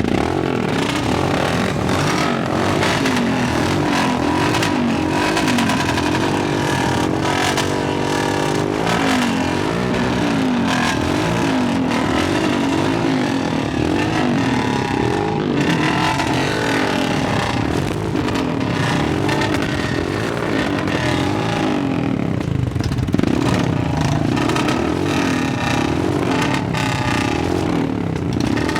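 Several Royal Enfield single-cylinder motorcycles running at once, each with a different exhaust silencer (megaphone-style off-road, Punjabi long, dholki and stock), their engines revved up and down again and again over a continuous thump.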